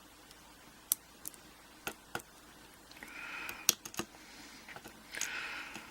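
Tiny lock pins and drivers from a pin-tumbler cylinder being nudged and arranged on a work surface: scattered light, sharp metal clicks, with brief soft scraping about three seconds in and again near the end.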